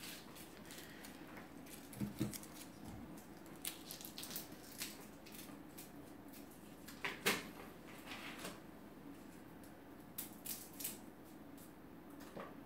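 Scattered light clicks and clatter of kitchen utensils and dishes being handled, with sharper knocks about two seconds in, about seven seconds in, and twice near the end.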